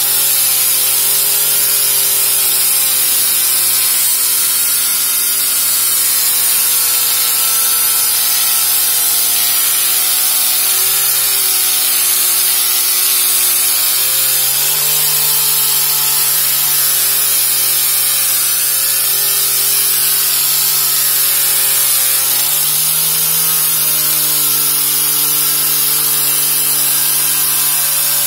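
Electric angle grinder with a cloth buffing pad running continuously while polishing a chrome motorcycle exhaust muffler, a steady motor whine over a hiss of cloth on metal. The whine shifts in pitch about halfway through and again some seconds later.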